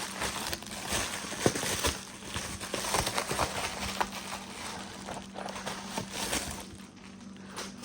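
Packaging being handled and opened: irregular clicks and crackly rustling, over a faint steady hum.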